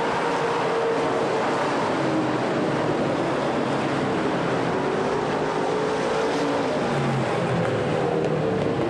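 Several dirt-track stock car engines running together on the oval, a dense steady din with engine pitches gliding up and down as the cars lap and pass.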